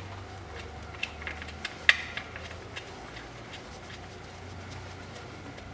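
Light clicks and rubbing as a transmission breather plug is screwed back in by hand, with the sharpest click about two seconds in, over a steady low hum.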